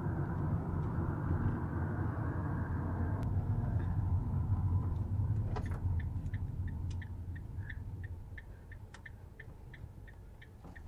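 Road and engine noise inside a Ram Promaster City camper van's cabin, a steady low rumble that fades as the van slows for a stop sign about six seconds in. Then the turn-signal indicator ticks evenly, about three clicks a second.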